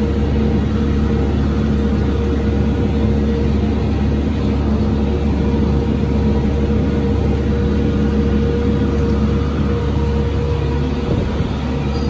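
New Holland T5060 tractor's diesel engine running steadily under load, heard from inside the cab, with a constant drone and tones while it pulls and drives a New Holland BR7060 round baler picking up hay.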